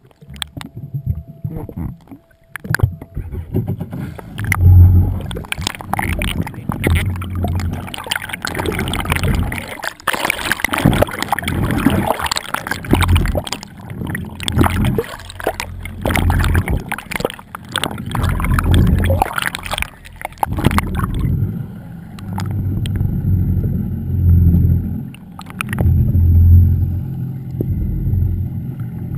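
Water sloshing and splashing against a camera housing held at the sea surface, in irregular rushes. About two-thirds of the way through it turns to a muffled, low underwater rumble and gurgle that comes in slow waves.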